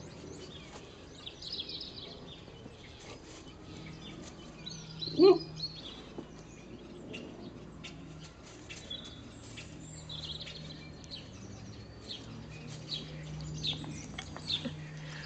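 Birds chirping in the background over faint, scattered clicks of an Alaskan Malamute puppy gnawing a pig's ear, with a low steady hum underneath. One short, loud pitched call stands out about five seconds in.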